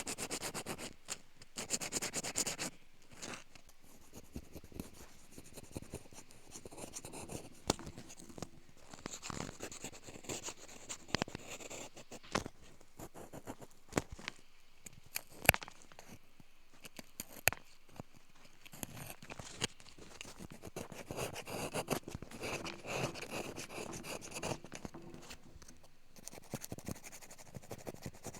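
Close-up light scratching and scraping in short runs, with scattered sharp clicks; one click about halfway through is the loudest.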